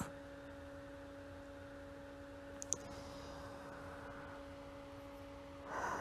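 Faint steady low hum over light room hiss, with one soft click about two and a half seconds in.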